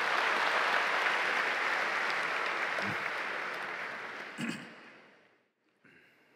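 Large crowd applauding, loud at first, then thinning out and dying away about five seconds in.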